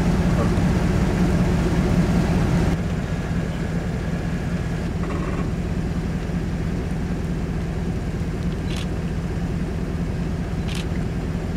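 A steady low hum, like a vehicle engine idling, that drops slightly a few seconds in, with a couple of faint short ticks near the end.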